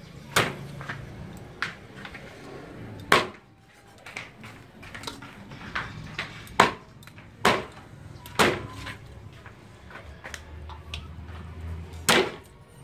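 Meat cleaver chopping meat on a round wooden chopping block: a string of sharp chops at uneven intervals, with a pause of a few seconds before a last chop near the end.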